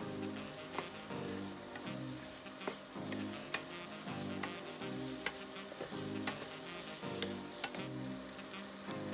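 Corn kernels sizzling in a hot nonstick frying pan while a wooden spatula stirs them, with scattered clicks and scrapes of the spatula against the pan. Soft background music plays underneath.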